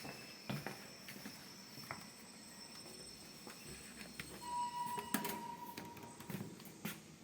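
Faint, scattered clicks and knocks over low room noise, with a faint steady high whine and a brief mid-pitched tone held for about a second and a half near the middle.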